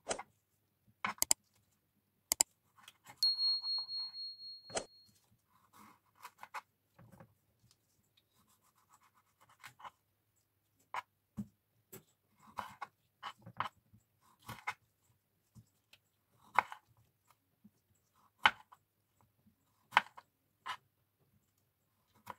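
Kitchen knife cutting cherry tomatoes in half on a plastic cutting board: sharp knocks as the blade meets the board at uneven intervals, with soft rustling between cuts. A steady high-pitched beep sounds for about two seconds a few seconds in.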